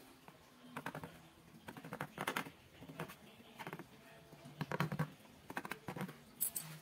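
Pen tip scratching and tapping on a sheet laid over a plastic board as it marks around a hole. It comes as irregular clusters of short scratchy clicks.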